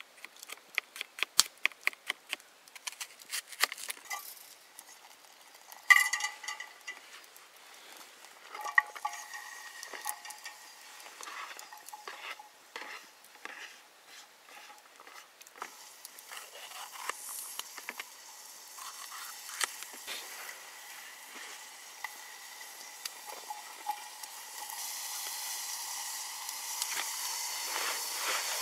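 Metal utensils clinking, tapping and scraping against camp cookware in quick irregular strikes, one loud ringing clink about six seconds in. A steady sizzling hiss of food cooking builds up near the end.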